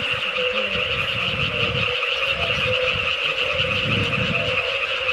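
Chorus of frogs calling steadily: a fast, high pulsing trill with short, lower calls repeating through it. An irregular low rumble lies underneath.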